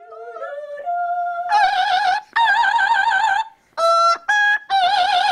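Amazon parrot singing opera-style: a string of long, high held notes with a wide, even vibrato, broken by short pauses. It begins with a few quieter notes sliding upward before the loud notes start.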